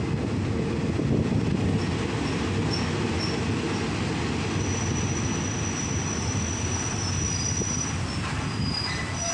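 Passenger train running on the rails as it pulls into a station, heard from inside the carriage: a steady low rumble, with thin high-pitched squeals from the wheels and brakes coming in a couple of seconds in as it slows.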